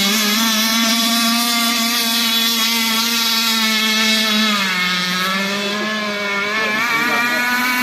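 RC catamaran boat's motor running steadily at high speed as a continuous whine. Its pitch sags briefly about halfway through, then rises again.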